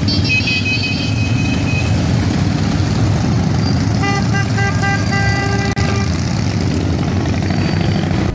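A group of cruiser motorcycles rumbling as they pull away together, with several horn toots about four seconds in.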